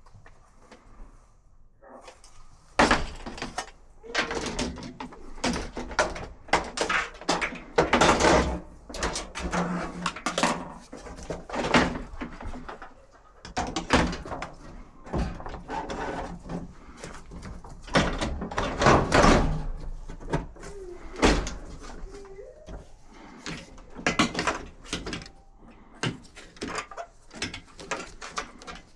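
Irregular clunks, knocks and scraping rattles of hands working on a clothes dryer's sheet-metal cabinet and parts, with the loudest knocks about 3, 8 and 19 seconds in.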